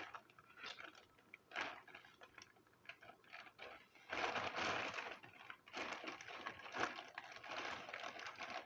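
Plastic fidget toys being handled and counted: scattered small clicks and knocks, then a stretch of plastic rustling and clattering from about four seconds in as they go into a bag.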